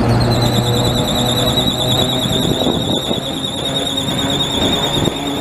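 Steel wheels of the FVV CSM-1 articulated tram no. 3720 squealing against the rails on a curve: a loud, high, slightly wavering squeal that sets in at the start and holds on over the rumble of the passing tram.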